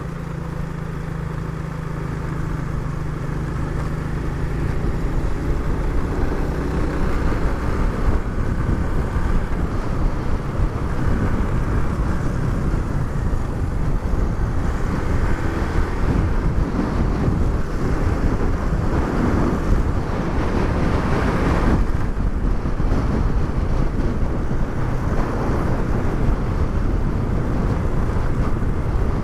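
Small single-cylinder four-stroke motorcycle engine running while riding, with wind noise on the microphone. A steady engine note stands out at first, then the wind grows louder over the first several seconds as the bike picks up speed.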